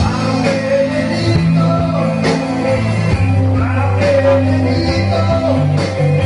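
A small band playing live: electric bass, electric guitar, keyboard and an electronic drum kit, with a man singing over them.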